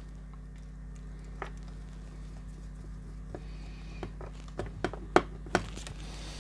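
A few light clicks and taps from handling a small data cable connector as it is unplugged from an LED signal splitter box: one single click, then a quick cluster a few seconds later. Under them runs a steady low hum.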